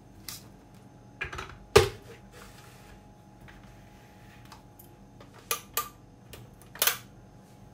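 A handful of sharp plastic clicks and knocks from a Kenwood blender's jar being handled and seated on its motor base, the loudest about two seconds in. The motor is not running.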